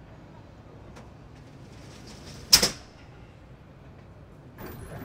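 A fire engine's slatted roller shutter sliding down briefly and shutting with one sharp bang about two and a half seconds in.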